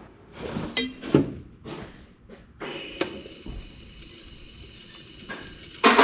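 Stainless steel header primary tube knocking and clanking against the exhaust flange stubs as it is worked into place in a tight engine bay. A few sharp metal knocks, then a steady hiss from about two and a half seconds in, with a loud knock near the end.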